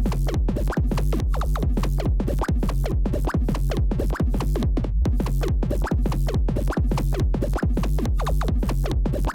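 Electronic dance music with a fast, steady drum-machine beat and a heavy, sustained bassline, without vocals.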